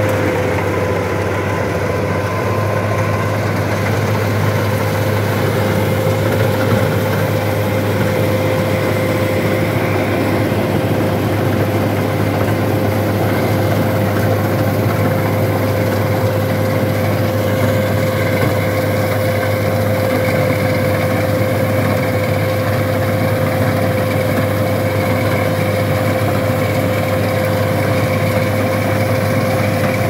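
LOVOL combine harvester running while harvesting: a steady engine drone with a constant high whine above it, unchanging throughout.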